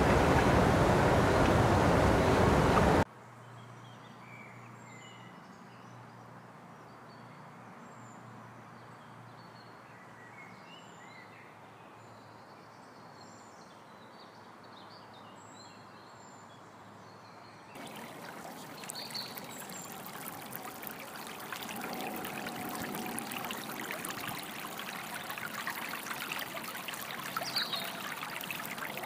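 A loud rushing noise cuts off suddenly about three seconds in, leaving a quiet woodland with faint scattered bird chirps. From about eighteen seconds, shallow stream water running over stones and leaves comes in and grows louder.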